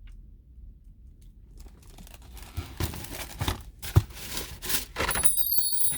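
Food packaging being handled, rustling and crinkling in irregular bursts, with a sharp click about four seconds in. High metallic ringing tones come in near the end.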